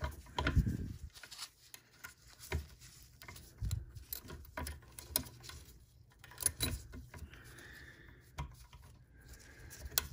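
Light, scattered clicks and taps of small steel parts, a spring and lever being worked by hand into the throat plate positioning bracket of a Singer 500J sewing machine.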